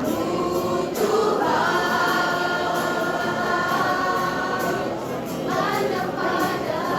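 School choir singing: the voices hold one long sustained chord for several seconds, then move into a new phrase near the end.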